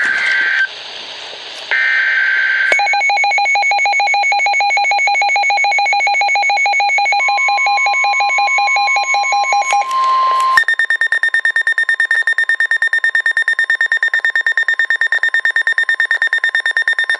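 Emergency Alert System alert on NOAA weather radios. It opens with two short bursts of the screeching digital SAME header data. Then a weather radio's alarm starts, a rapidly pulsing beep, and the steady 1050 Hz NOAA warning alert tone joins it for a few seconds. About ten seconds in, a second, higher-pitched rapidly pulsing radio alarm takes over.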